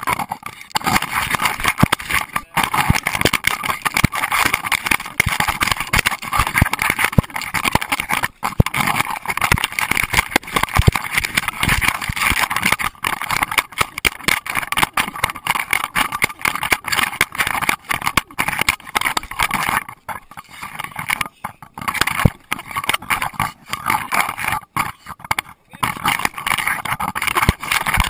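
Constant rubbing, knocking and buffeting from a GoPro Hero2 camera in its waterproof housing, strapped to a running Doberman, with many small knocks; it eases briefly about twenty seconds in.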